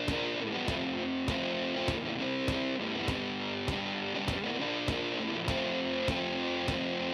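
Background music with a steady beat, a little under two beats a second, under held pitched tones.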